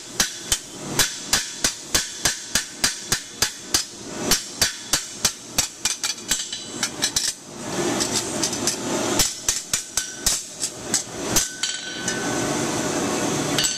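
A hand hammer strikes the sheet-steel brim of a burgonet helmet in quick, even blows, about three or four a second. Each blow has a short metallic ring. The hammering is small, light taps that work the brim's edge a little at a time. It pauses about halfway, starts again, and gives way near the end to a steady rushing noise.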